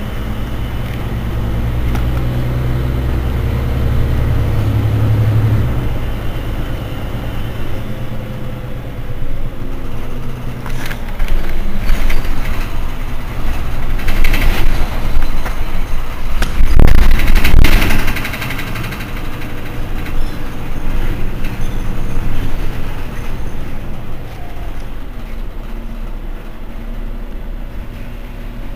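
Mercedes-Benz Citaro C2 city bus idling, its rear-mounted engine giving a steady low hum that drops in level about six seconds in. Midway comes a louder, noisier spell of sharp bursts, loudest about seventeen seconds in, before it settles back to the idle.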